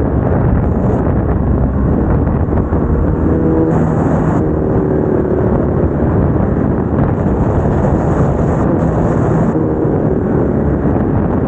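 BMW R1250GS Adventure's boxer-twin engine and exhaust while riding, the engine note shifting in pitch a few times, with wind rushing over the microphone.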